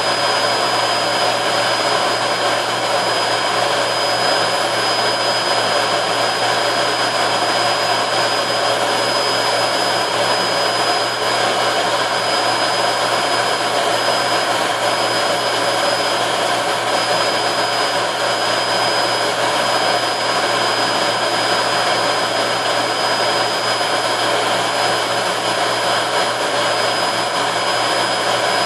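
Dansat 21-litre vacuum cleaner running steadily on a test run after repair: a constant rush of air with a steady high motor whine.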